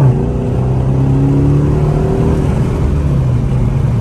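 Straight-piped V8 exhaust of a Chrysler 300, heard from inside the cabin with the windows up, under throttle. It drops in pitch at an upshift right at the start, then holds a fairly steady note. Newly fitted mufflers/resonators have tamed it: still there but not as loud, without the old drone.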